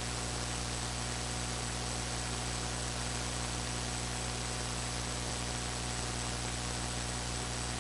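Steady hiss of the recording chain with a low electrical mains hum and a faint thin high whine, unchanging throughout.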